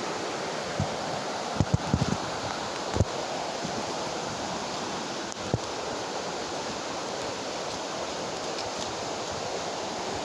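Steady rush of river water, with a few short low thumps on the microphone.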